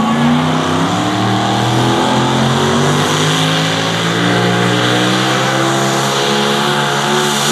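Pulling tractor's engine running flat out as it hauls the weight-transfer sled down the track, its pitch climbing a little at first and then holding high.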